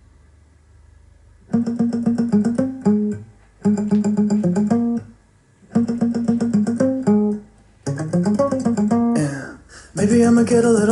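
A Klipsch The One II tabletop speaker playing the plucked acoustic guitar intro of a pop song. The guitar comes in about a second and a half in, after a faint hum, and plays short repeated phrases with brief gaps between them.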